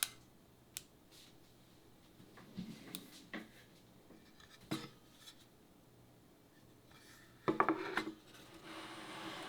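Small metal parts being handled: scattered light clicks and knocks, then a brief clattering rattle near the end, followed by a soft hiss.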